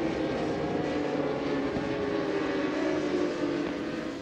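Racing superbike engines at high revs, a steady, loud note sinking slightly in pitch, then fading near the end.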